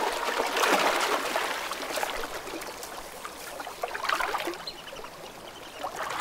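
Grizzly bear swimming and thrashing in a river, the water splashing and sloshing in irregular bursts, loudest about a second in and again around four seconds.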